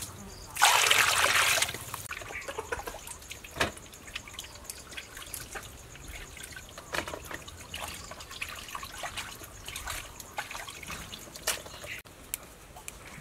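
Water splashing and dripping as raw fish heads are rinsed by hand in a plastic basin of water. A loud rush of water comes about half a second in and lasts about a second, followed by scattered small splashes and drips.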